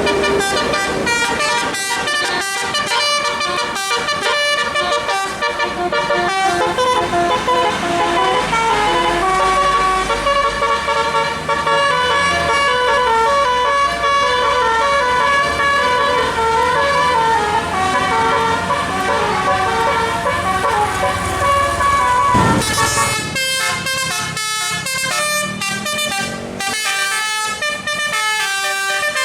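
Bus telolet horn, a set of musical horns, playing a rapid melody of stepping notes over the low rumble of a bus. About 22 seconds in, the tune changes to short, choppy notes with gaps between them.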